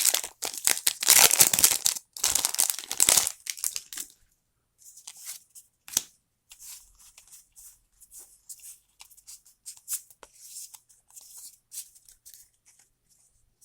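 Pokémon booster pack wrapper being torn open in several loud rips over the first few seconds, followed by faint crinkling and small ticks of the wrapper and cards being handled.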